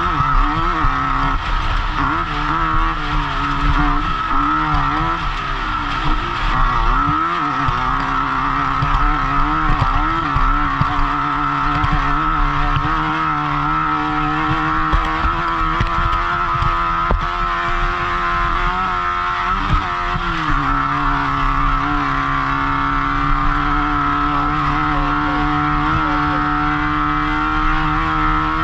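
Off-road race car's engine running hard, heard from the driver's helmet: the revs rise and fall again and again for about twenty seconds, then hold high and steady. Frequent short knocks and rattles run underneath.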